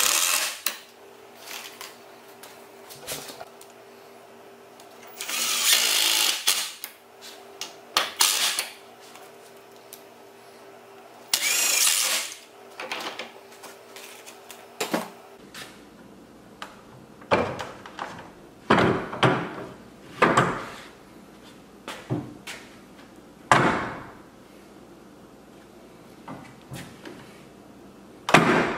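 Cordless impact driver driving screws through a caster's mounting plate into wood, in four bursts of about a second each in the first half. After that come a series of short knocks and clunks.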